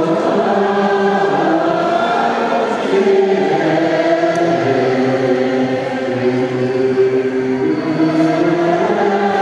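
Monks and lay devotees chanting together in Tibetan Buddhist group prayer, many voices holding long notes in unison that shift in pitch every second or two.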